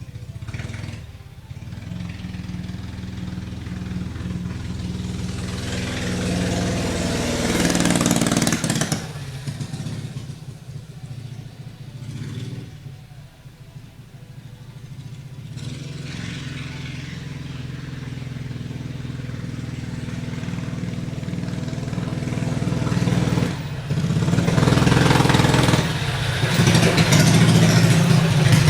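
Honda-engined Heathkit GT-18 minibike engine running, getting louder about a quarter of the way in, dropping back around the middle, then loud again near the end.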